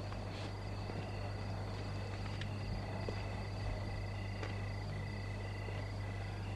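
Night ambience of insects chirring in several steady high tones, over a steady low hum, with a few faint clicks.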